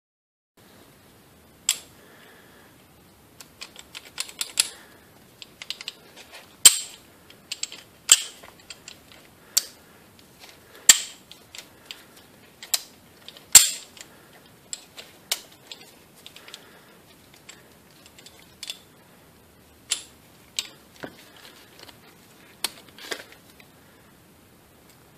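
Steel gears, synchro hubs and rings of a Honda five-speed transmission shaft clinking and clicking against each other as they are slid on and seated by hand: a couple of dozen irregular sharp metallic clicks, the loudest two about a quarter and about halfway through.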